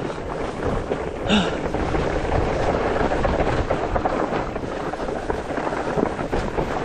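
Mountain bike riding down a rough dirt trail: wind buffeting the microphone over the rumble and rattle of tyres and frame on the ground, with a brief pitched sound about a second in.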